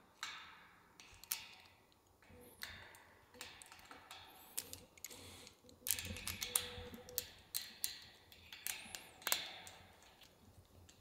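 Light metallic clicks and ticks, irregular and scattered, of a wrench tightening the two clamps on a steel cable.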